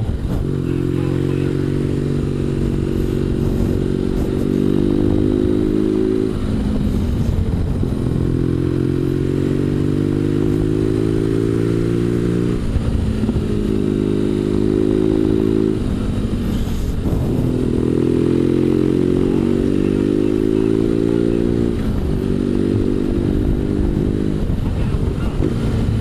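BMW R1200GS flat-twin engine pulling up a winding road. Its pitch climbs slowly and drops back sharply about four times as the rider shifts and eases off for bends, with wind rushing past.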